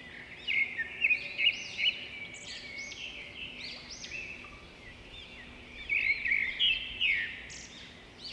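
A busy chorus of many birds chirping and calling together, overlapping short chirps and sweeping notes, loudest about half a second to two seconds in and again around six to seven seconds in.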